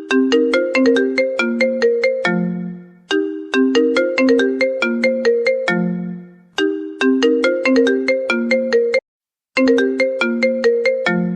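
iPhone ringtone in a marimba voice: a quick run of struck notes ending on a held low note, repeating about every three and a half seconds. It breaks off briefly about nine seconds in.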